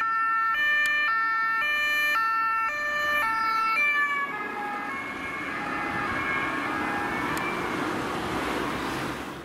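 Ambulance siren sounding as the ambulance approaches and passes, stepping between tones about twice a second. Its pitch drops as it goes by about four seconds in, then the siren is quieter over the van's engine and tyre noise as it drives away.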